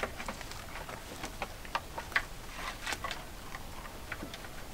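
Kid goats feeding on fresh-cut leafy branches: irregular soft crackles and ticks of leaves and twigs rustled and snapped as they pull and chew, with one sharper tick about two seconds in. No bleating.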